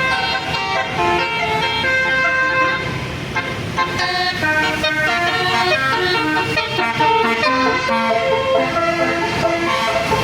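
Bus 'telolet basuri' multi-tone musical horn playing a melody of short held notes that step from pitch to pitch, over a low rumble of traffic.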